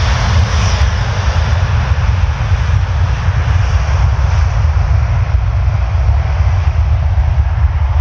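Airliner jet engines running at high power for the takeoff roll: a loud, steady deep rumble under a broad hiss.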